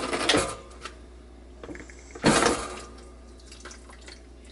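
A Ninja Foodi pressure-cooker lid being twisted and lifted open: two short noisy scraping rushes about two seconds apart, with a few faint clicks between them. The pressure has already been vented.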